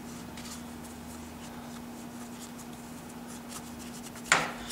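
Cloth shop rag rubbing and rustling against a Harley-Davidson front brake master cylinder housing as it is wiped clean, with faint scattered scrapes and ticks over a steady low hum. One sharp, louder knock comes about four seconds in.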